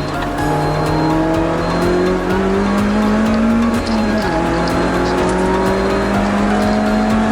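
Lotus Elise Sport 220 II's supercharged 1.8-litre four-cylinder accelerating hard, its pitch climbing steadily, with an upshift about four seconds in before it climbs again in the next gear.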